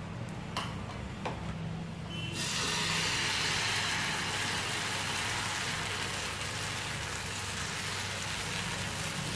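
Semolina and wheat-flour vegetable batter sizzling on a hot oiled nonstick tawa as it is ladled on and spread. The steady hiss sets in about two seconds in, after a couple of light clicks, over a low hum.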